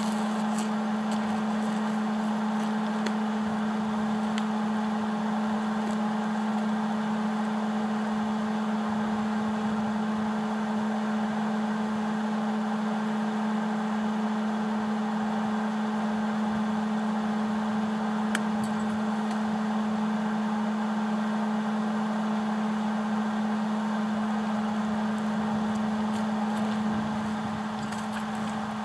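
Electric welder running: a steady buzzing hum over an even hiss, with a faint click about eighteen seconds in and a slight drop in level near the end.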